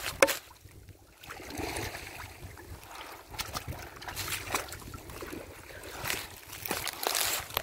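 Shallow water sloshing and splashing as a person wades and reaches into the water at a pond's edge, with a few sharper splashes.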